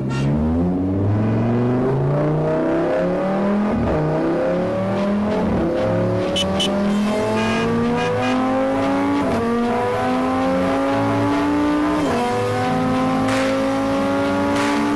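Car engine accelerating hard through the gears, its pitch climbing and dropping sharply at each of several upshifts.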